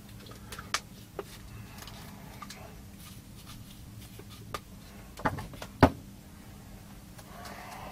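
Scattered small clicks and knocks of tools and parts being handled on a soldering workbench, with two louder knocks a little after five seconds in, over a faint steady hum.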